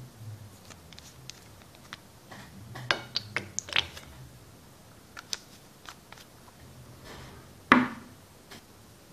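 Small clicks and crinkles of a plastic watercolour paint tube being handled and squeezed, then one sharp knock near the end as the tube is set down on a wooden tabletop.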